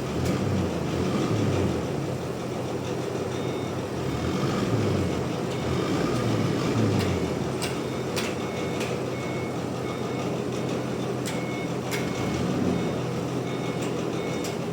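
A heavy machine's engine running, its pitch rising and falling through the first seven seconds and then holding steady, with scattered clicks and a short, repeated high beeping tone in the second half.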